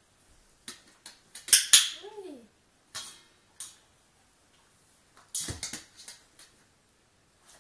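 Stainless steel dog bowl clinking and knocking on a tiled floor as an Australian shepherd steps on and paws at it. The loudest knocks come about one and a half seconds in, and a cluster comes about five and a half seconds in. A short rising-then-falling voice sounds about two seconds in.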